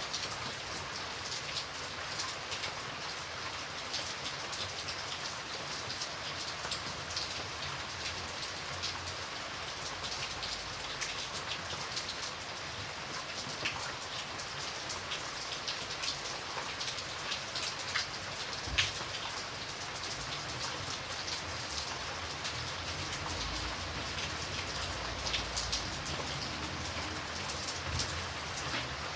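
Steady rain falling, an even hiss with many individual drops ticking on a surface, one sharper drop about two-thirds of the way through.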